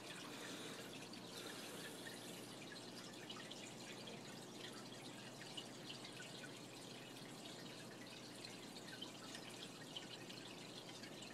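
Aquarium water trickling steadily, with many small scattered drips and splashes.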